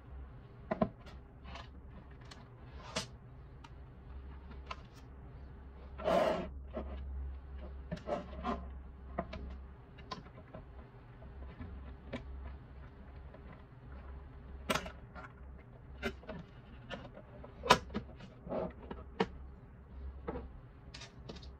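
Handling of a humidifier's plastic base and bottom cover: scattered short clicks and knocks as a wire plug is pushed back into its socket and the cover is fitted, with a longer scrape about six seconds in. A faint steady low hum sits underneath.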